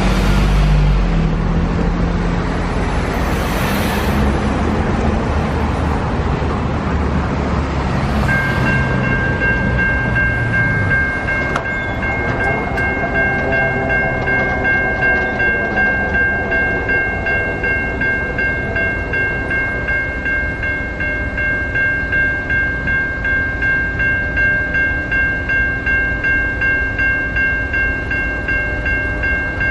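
A van and a pickup truck drive past at the start. About eight seconds in, a grade-crossing warning bell starts ringing, steady and pulsing, as the crossing activates for an approaching freight train.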